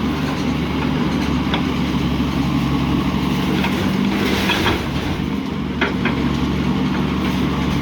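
A heavy engine running steadily, with a few sharp metallic knocks and clanks scattered through it, as scrap is handled.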